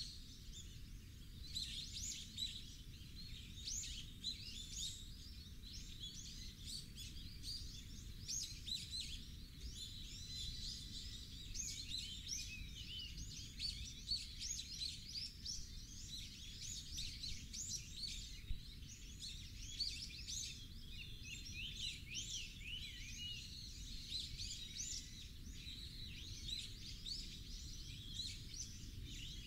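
Many small birds chirping and calling rapidly and continuously, some calls sliding downward, over a steady low rumble.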